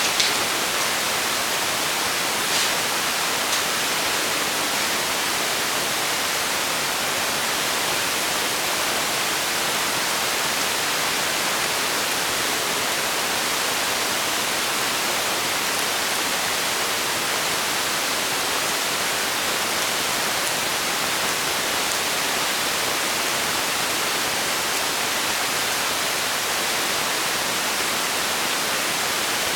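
Steady, even hiss that does not change, like a fan or white-noise machine, with a few faint clicks in the first four seconds.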